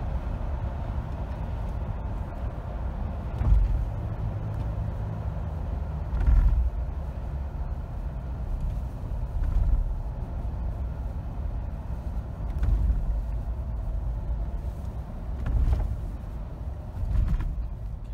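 Road and engine noise inside a moving car's cabin: a steady low rumble, with about six heavier low thumps every few seconds.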